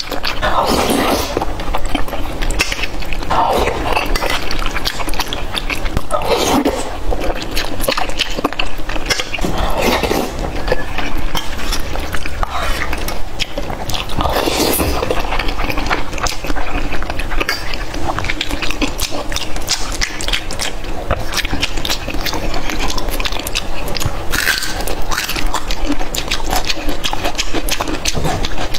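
Close-miked eating: wet chewing and slurping of soft food taken from a metal spoon, with the spoon clinking and scraping against a stainless-steel bowl. The sounds come in a run of clicks and smacks, with a louder slurp every second or two.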